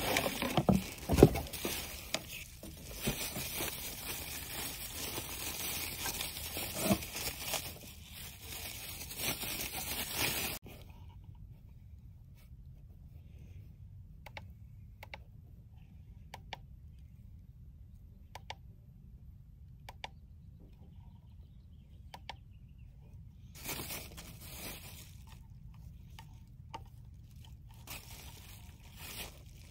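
Cardboard box and plastic bubble wrap being handled and crinkled, with rustling and a few knocks for about ten seconds. Then it drops suddenly to quiet, broken by scattered light clicks and two short rustles near the end.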